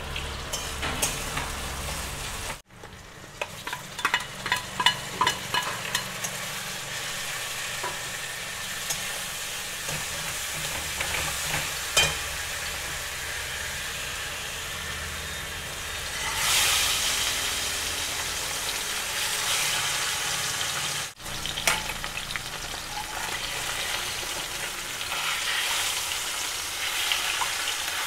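Food frying in hot oil in a pan, sizzling steadily, with a run of sharp clicks of a utensil against the pan early on and a louder surge of sizzling about sixteen seconds in.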